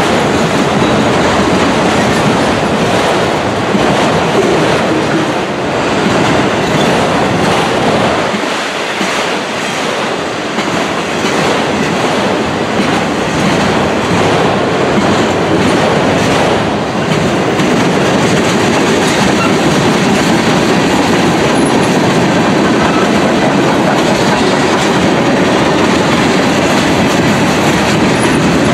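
Freight cars rolling past close by, first autoracks, then covered hoppers: steel wheels clicking over rail joints in a steady, loud clatter.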